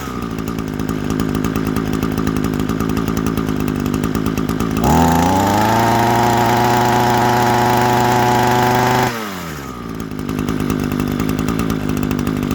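Small engine running at idle, revved up about five seconds in and held at the higher pitch for about four seconds, then dropping back to idle.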